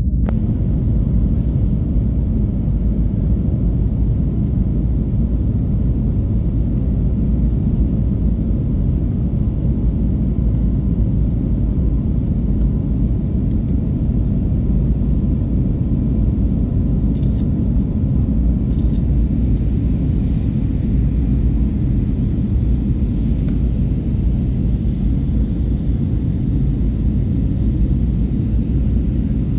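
Steady, deep cabin rumble of an Airbus A321neo in its climb after takeoff, engine and airflow noise heard from inside the passenger cabin.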